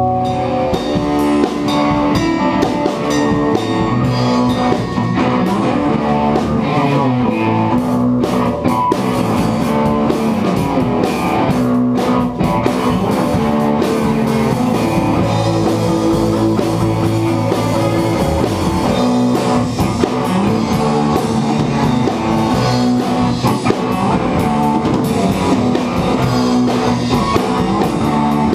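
A rock band playing live: electric guitars through amps over a drum kit, in a steady instrumental passage with no vocals.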